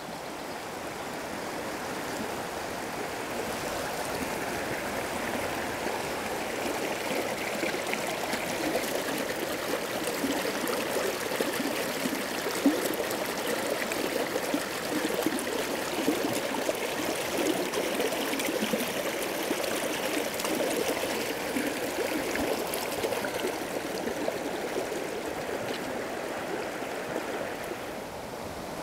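River rapids rushing steadily over rocks, with one brief knock about halfway through.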